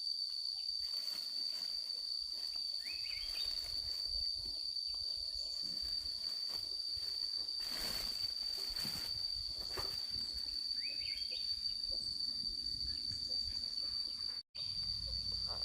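Insects trilling in one steady, unbroken high-pitched drone, with a few short rising chirps a few seconds in and again later. The sound cuts out for an instant near the end.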